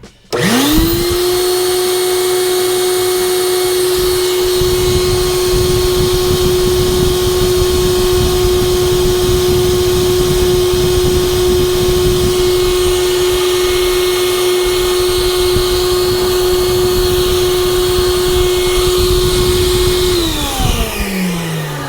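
Big vacuum switched on, its motor spinning up within a moment to a steady high whine and running for about twenty seconds while blowing air into a clogged air-conditioner condensate drain line, then switched off and winding down with a falling pitch near the end.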